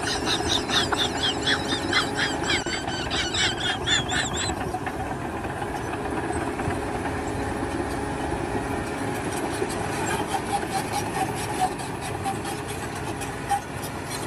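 Rapid, repeated high-pitched squeals over a running engine for about the first four seconds, then the engine running on alone.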